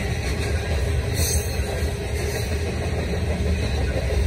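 Freight train of tank cars and covered hoppers rolling past a level crossing: a steady low rumble of steel wheels on rail, heard from inside a car.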